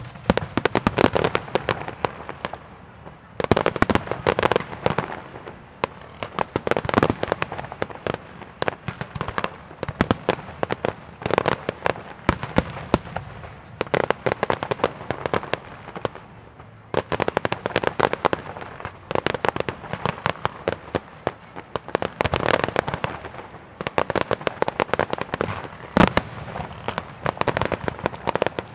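A fireworks display: shells bursting in quick clusters of bangs and crackles that come in waves every couple of seconds. One especially sharp bang comes near the end.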